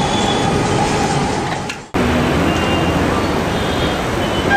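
Steady roadside traffic noise. It breaks off abruptly about two seconds in and then carries on.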